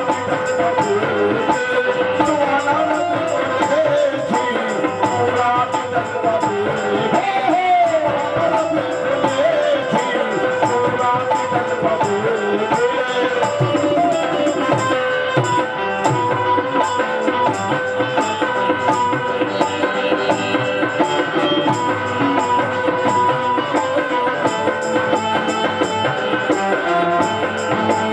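Qawwali music: a harmonium plays a wavering melody over held drone notes, with a steady hand-drum beat throughout.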